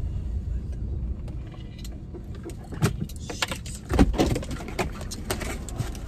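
A person climbing out of a car: light clicks and rattles of the door and belongings, then the car door shutting with a thump about four seconds in, over a steady low rumble.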